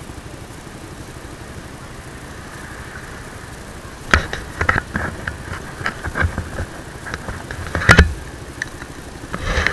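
A clear plastic bag crinkling and crackling in hands from about four seconds in, loudest a little before the end. Under it runs a steady low vehicle rumble, alone at the start.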